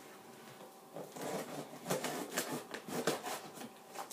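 Cardboard shipping box being opened by hand: after a quiet second, a run of irregular scrapes, rustles and clicks of cardboard and packing tape for about three seconds.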